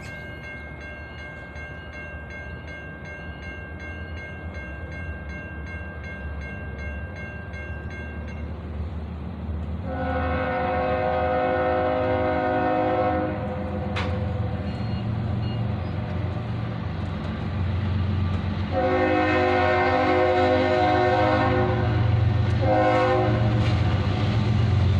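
Diesel freight locomotive horn sounding the grade-crossing pattern as a CSX manifest train led by an ES44AH and an ES40DC approaches. There is a long blast about ten seconds in, another long blast later, then a short one, and a last long blast beginning at the very end, over an engine rumble that grows louder. Before the horn, a crossing bell rings steadily for several seconds, then stops.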